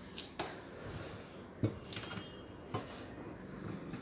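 About five faint, sharp clicks and light knocks, irregularly spaced, against low room tone.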